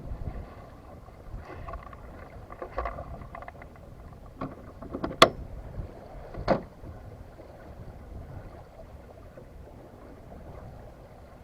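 Low rumble of wind and water aboard a small sailboat, with a short run of light clattering knocks about two seconds in. Then come three sharper knocks between about four and seven seconds in, the middle one loudest.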